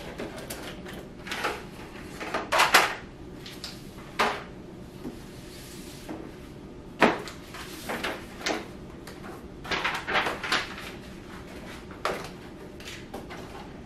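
Irregular knocks and clatters of household things being handled and set down during cleaning, like drawers and cupboard doors shutting; about a dozen, the loudest a few seconds in and again about halfway through.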